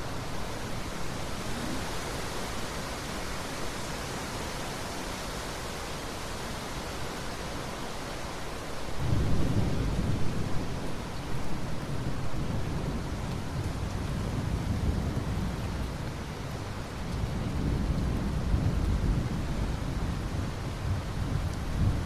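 Steady rain hiss, with low rolling thunder breaking in about nine seconds in and rumbling on in swells, loudest again near the end.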